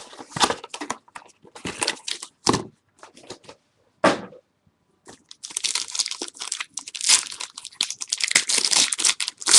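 Foil trading-card pack wrapper rustling and crackling. Scattered short rustles come over the first few seconds, then a brief pause, then continuous crinkling as the foil is torn open from about five seconds in.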